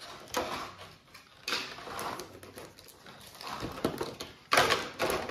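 Packaging being handled: cardboard box and foil booster-pack wrappers rustling and crinkling in irregular bursts, loudest near the end.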